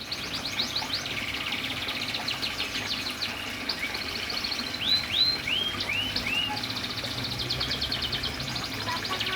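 Domestic canary singing continuously in fast rolling trills, with a run of separate arched whistled notes about halfway through.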